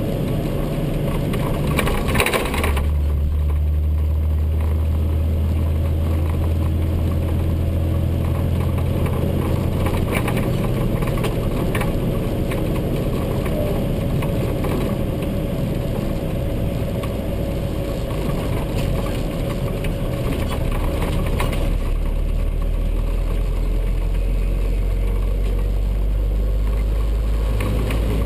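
Truck engine running while driving, heard from inside the cab: a steady low drone with road noise, its pitch stepping up or down several times, and a brief clatter about two seconds in.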